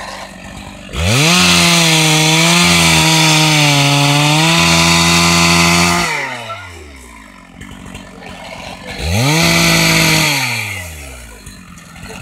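Husqvarna 272 XP two-stroke chainsaw revved hard to full throttle about a second in and held there for about five seconds, its pitch wavering a little, then dropping back to idle. A second, shorter rev follows about three-quarters of the way through before it falls back to idle again.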